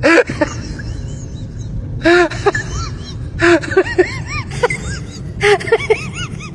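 An animal's short pitched calls, each rising then falling, several in quick succession in groups every second or so, over a steady low rumble.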